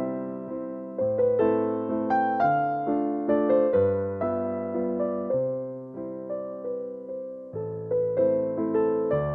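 Background music: a piano playing chords over bass notes, each note struck and left to fade.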